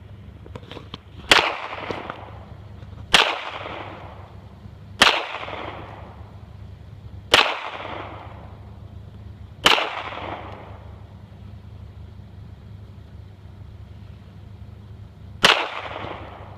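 Glock G42 pistol firing .380 ACP rounds: six single shots, five about two seconds apart, then a pause of about six seconds before the last, each trailing off in an echo.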